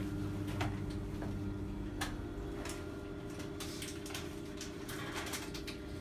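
Kone MonoSpace machine-room-less traction lift car setting off upward: a steady hum, with a click about two seconds in where the hum's pitch shifts, then scattered light clicks and rattles as the car travels.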